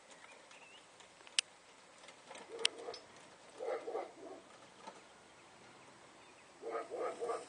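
A pigeon cooing in three short phrases, each a few low pulsed notes, the last near the end. Two sharp clicks come about a second and a half and two and a half seconds in.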